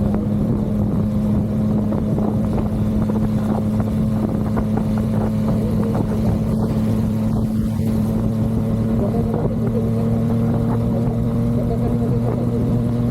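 Yamaha MT-09's inline three-cylinder engine running at a steady cruising speed, its note holding even and creeping slightly higher near the end.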